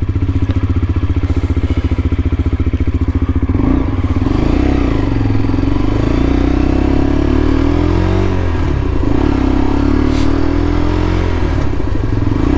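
A 125cc motorcycle engine on its stock exhaust, idling with an even pulse. About four seconds in it pulls away and revs up through the gears, its pitch rising, dropping at a shift near eight seconds, then rising again.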